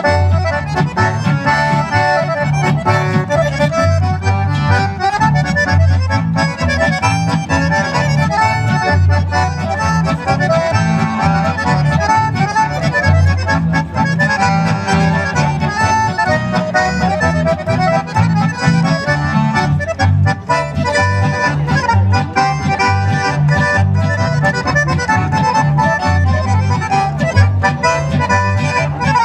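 Live band music: two accordions playing the tune over acoustic guitar and double bass, with a steady pulsing beat in the bass.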